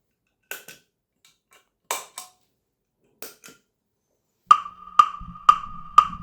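Three pairs of soft clicks, then a four-beat metronome-style count-in: sharp wood-block-like clicks half a second apart, over a faint low hum.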